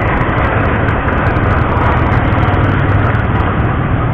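Steady, loud vehicle and traffic noise with a low engine hum underneath and no distinct events.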